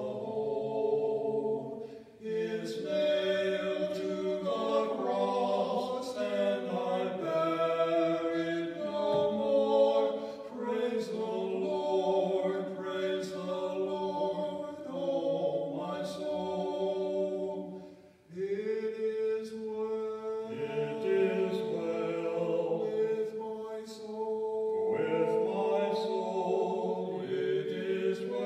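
Two men singing a hymn together in long sustained phrases, pausing briefly twice between phrases.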